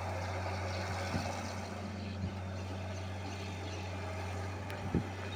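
Diesel engine of a Fiat-Hitachi wheeled excavator running steadily while the machine swings a loaded bucket of sand, with a single knock near the end.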